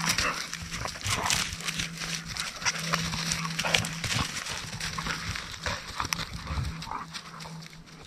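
Dogs playing rough together on dry grass and leaves: scuffling, rustling and dog noises throughout, over a steady low hum.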